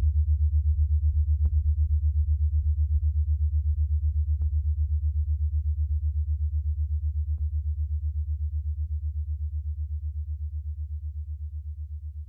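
Low, fast-pulsing electronic bass tone that slowly fades out, with faint clicks about every second and a half.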